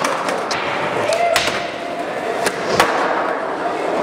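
Skateboard wheels rolling on a smooth concrete floor, with several sharp clacks of a board hitting the ground; the loudest clack comes a little under three seconds in.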